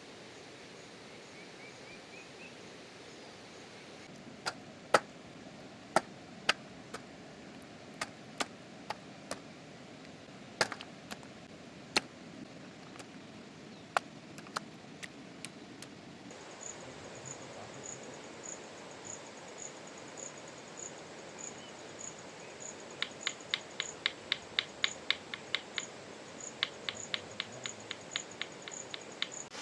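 Steady rush of rain and falling water with sharp knocks, irregular at first, then in quick runs of about four or five a second near the end. About halfway in, a high insect chirp starts and pulses evenly.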